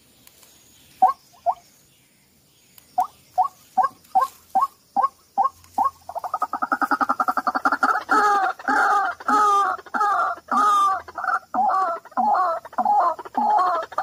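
White-breasted waterhen calling: a few spaced notes that speed up into a rapid stuttering run, then loud repeated two-part 'kru-ak' notes about two a second.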